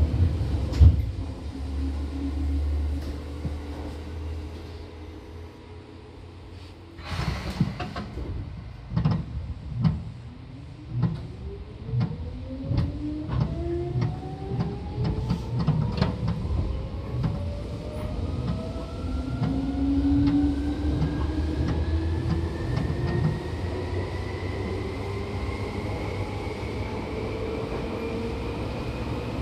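Seibu 2000 series electric train pulling away: a short hiss-like burst about seven seconds in, then the traction motor whine rising steadily in pitch as the train accelerates, with rail-joint clicks coming faster and faster. Before that, a low rumble fades away.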